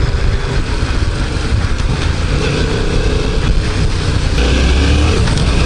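Yamaha MT-07's parallel-twin engine running as the motorcycle rides along in third gear. About four seconds in, the engine sound steps up and stays louder, as the throttle is opened.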